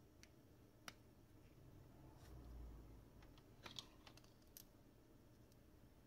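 A few faint, sharp clicks from a smartphone's small parts being handled and pressed together, with a soft low bump about halfway, over near silence.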